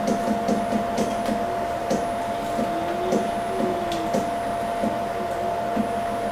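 Sixi robot arm's stepper motors whining as the arm is driven, the pitch gliding up and back down about three seconds in, over a steady high hum and scattered light ticks.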